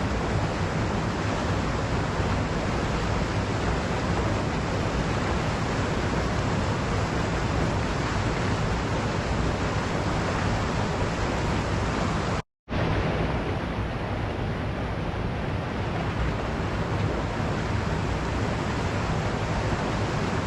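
Waterfall rushing steadily. The sound drops out to silence for a split second about twelve seconds in, then resumes slightly duller.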